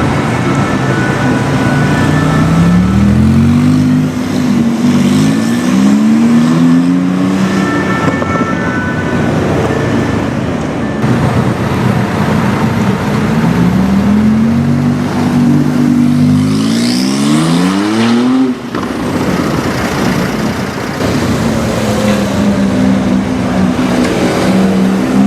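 Tuned Porsche 991 Turbo S twin-turbo flat-six with a Stinger GTR exhaust accelerating hard, twice, its note rising and dropping back with each quick upshift; the second pull cuts off sharply, and a steadier engine note follows near the end.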